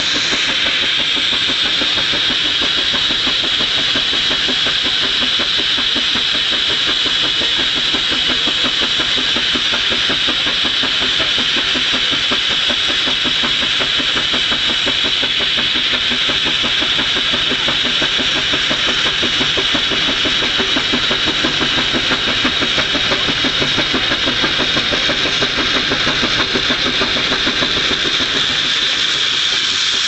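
Steam ploughing engine working hard, winding the balance plough in on its cable: fast, even exhaust beats under a loud, steady steam hiss.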